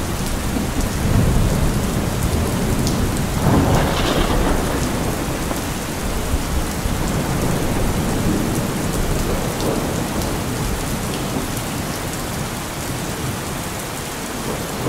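Thunderstorm ambience: steady rain with low rolling thunder, swelling about four seconds in and easing slightly toward the end.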